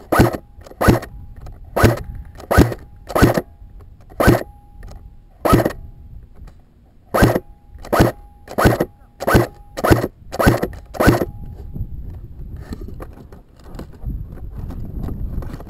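Airsoft gun firing about fourteen single shots in uneven succession, each a sharp crack, with a faint steady whine underneath; low rustling follows for the last few seconds.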